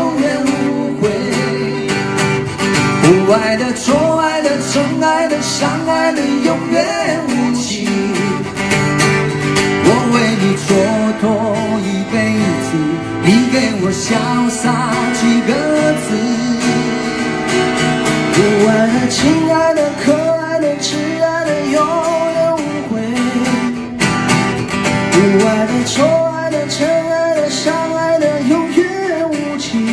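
Two acoustic guitars played live, with a man singing over them.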